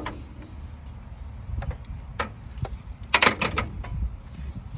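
Several sharp clicks and knocks of hand tools and parts being handled during engine work, with a quick cluster of the loudest about three seconds in, over a steady low rumble.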